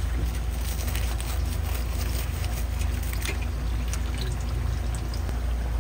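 Oil sizzling and crackling in a deep fryer, over a steady low rumble.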